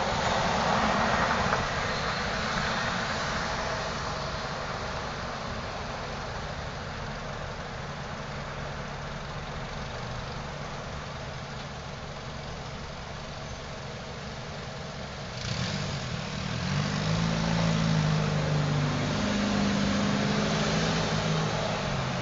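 Street traffic: a steady hum of passing cars, with a car engine coming up louder about two-thirds of the way through.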